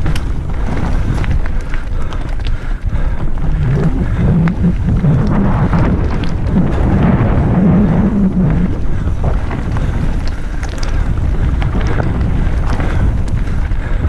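Wind buffeting the camera microphone while a mountain bike speeds down a gravel forest trail, with a steady low rumble from the tyres and frequent sharp rattles and knocks as the bike runs over stones and roots.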